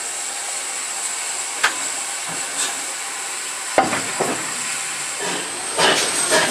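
Standing GWR 5700-class pannier tank locomotive hissing steam steadily, with two sharp metallic knocks. Near the end, the rhythmic exhaust beats of a working steam locomotive start, about two a second.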